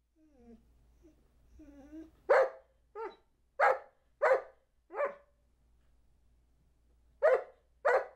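Old English Sheepdog barking on command as if counting. A few soft whines come first, then seven single barks: five in a quick run about a second apart, a pause of about two seconds, and two more near the end.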